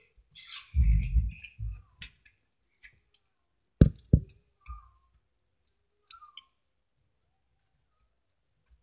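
LEGO pieces being handled and fitted by hand: a low rumble of handling about a second in, then two sharp plastic clicks around four seconds in, the loudest, followed by a few faint ticks.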